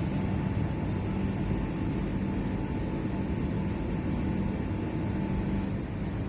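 Steady low mechanical rumble with a hum, like a motor running. A faint higher tone runs over it and stops about five and a half seconds in.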